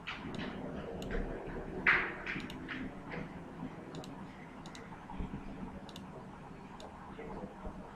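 Irregular, scattered clicks of a computer mouse, with one louder knock about two seconds in.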